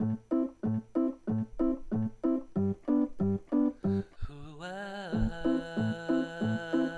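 Keyboard music with an oom-pah accompaniment: a low bass note alternating with a higher chord, about three beats a second. About four seconds in, a long held note slides in pitch and then holds steady over the accompaniment.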